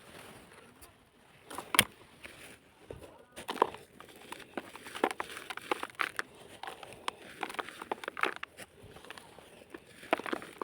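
Lumps of dry sand-cement dirt being crumbled and crushed: an irregular run of crunches and crackles, with several louder crunches among them.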